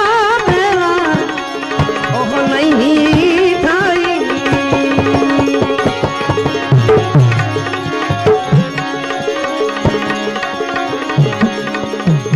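Bhajan accompaniment music: tabla playing, its bass drum bending down in pitch on some strokes, under a wavering melodic line for the first few seconds and held tones after that.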